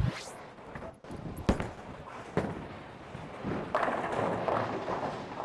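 Bowling alley sounds: two sharp knocks about a second and a half and two and a half seconds in, then a spell of clattering about four seconds in, as of a ball striking pins.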